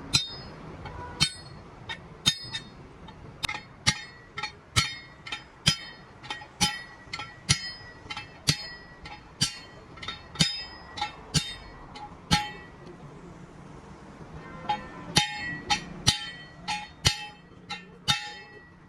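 Repeated hammer blows on steel, each ringing, about two a second, stopping for a couple of seconds and then starting again.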